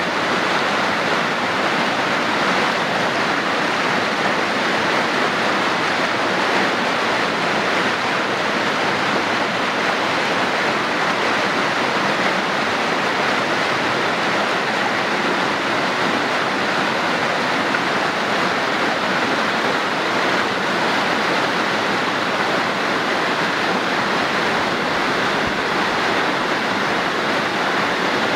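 A swollen creek rushing and tumbling over rocks: a steady, loud whitewater rush.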